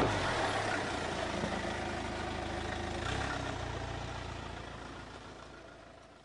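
Land Rover Freelander's engine running as the vehicle drives through snow, the sound fading out gradually over the last few seconds.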